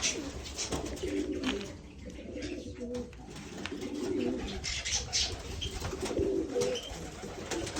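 Pigeons cooing over and over in low, rolling phrases, with brief high chirps scattered through.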